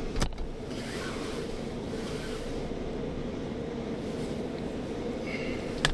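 Steady low rumble of a car heard from inside the cabin, with a sharp click just after the start.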